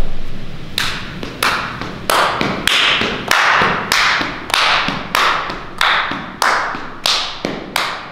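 A dancer's hand claps, about a dozen sharp claps at a brisk, slightly uneven pace, each followed by a short echo off the hard floor and walls of a large room.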